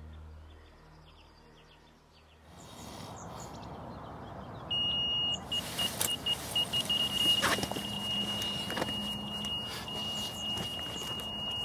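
A single high electronic bite-alarm tone, played from a phone app, comes in about halfway through, stuttering at first and then holding steady. Rustling and clicks sound as a man scrambles up from his bed chair.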